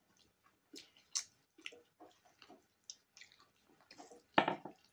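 Wet eating sounds: short, irregular chewing and lip-smacking noises, with a louder wet smack near the end.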